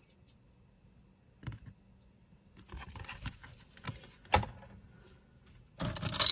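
Metal and glass costume jewelry clinking and rattling as a hand rummages through a wooden box full of it: scattered light clicks, then a denser jangle near the end.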